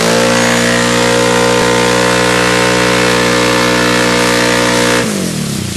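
Quad bike engine held at high, steady revs as the wheels spin in the mud and fling a spray of mud; about five seconds in the revs drop away.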